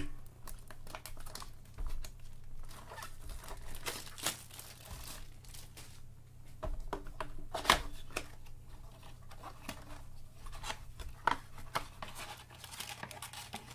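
Plastic shrink wrap being torn and crinkled off a cardboard trading-card blaster box as it is handled and opened: irregular crackling and rustling with scattered sharp clicks, the sharpest a snap about eight seconds in.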